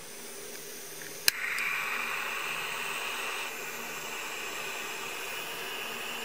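Butane gas soldering iron lit by its igniter: one sharp click about a second in, then a steady hiss of the gas burning at the tip.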